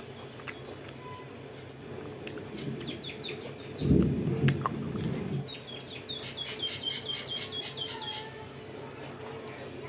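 A bird calling in the background: quick high chirps repeated in runs, the longer run about ten notes. Near the middle there is a brief, louder low rustle as food is pressed on the plate.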